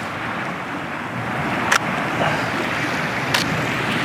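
Small waves washing over a pebble beach, a steady surf noise, with two sharp clicks about 1.6 seconds apart: a DSLR's shutter opening and closing on a 1.6-second exposure.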